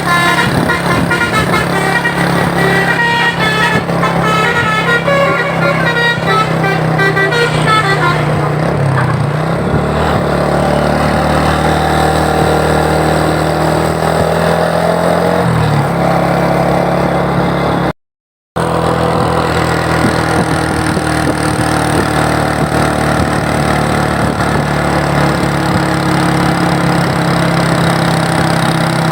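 Bus basuri telolet horn playing a quick run of changing tones for about the first eight seconds, over the steady running of the bus engine. The engine runs on alone after that, with a brief dropout partway through.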